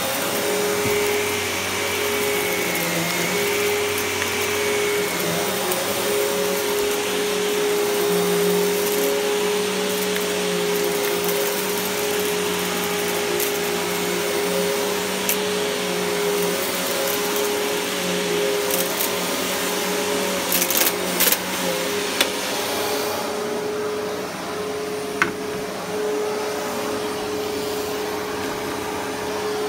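Riccar bagged upright vacuum cleaner running over carpet: a steady motor hum over a rushing airy hiss. A few sharp clicks come about two-thirds of the way through, and the hiss thins near the end.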